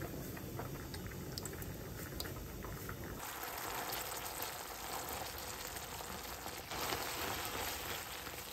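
Food cooking in a pan or pot: a steady sizzling, bubbling hiss with small crackles, changing abruptly about three seconds in and again near seven seconds, where it gets brighter.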